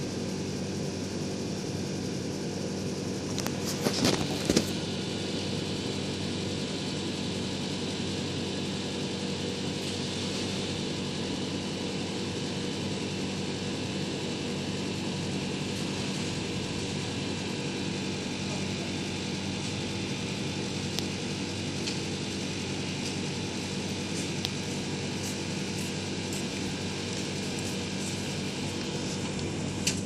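A machine running steadily, a constant hum with several fixed tones. A brief clatter comes about four seconds in, and a few faint ticks later.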